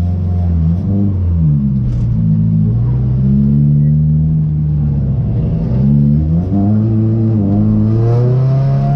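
Race car engine heard from inside the stripped cabin, running hard, its pitch climbing and dropping several times as the driver accelerates and eases off around the track.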